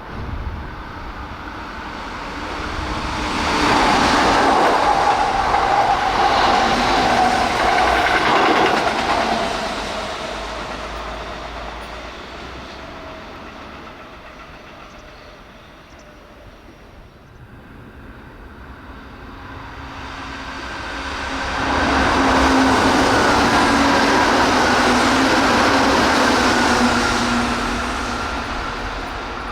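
Two Keihan electric trains pass at speed, one after the other: a 3000 series rapid express about three seconds in, then a 2600 series semi-express about twenty seconds in. Each pass lasts six or seven seconds, wheel and rail clatter with a motor whine that drops slightly in pitch as the train goes by.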